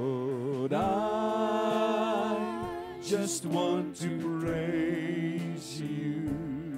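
Live church worship band playing a praise song, with singers holding long notes with vibrato over guitars and piano.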